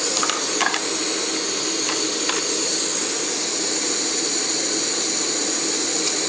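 Optimus Crux gas canister stove burning under a pot of water: a steady hiss. A few light clicks and knocks come in the first couple of seconds.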